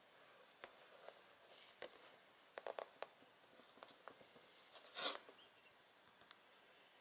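Faint handling noise from a cardboard figure box being turned by hand on a wooden table: scattered light taps and clicks, with one louder scraping rustle about five seconds in.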